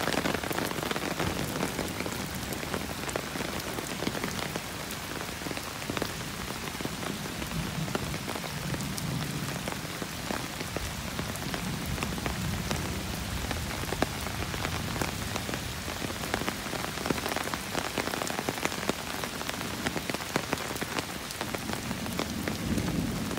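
Steady rain falling on wet ground, leaves and the surface of a muddy, runoff-filled ditch, with many small sharp drop ticks throughout.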